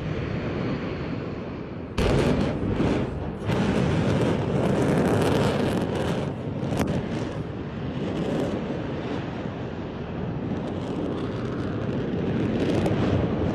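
Erupting volcano: a continuous, dense noisy roar with many sharp bursts, which jumps louder about two seconds in.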